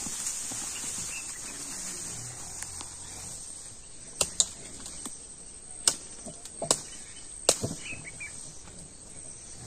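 Steady high-pitched insect chirring in a field, with several sharp clicks or knocks between about four and eight seconds in.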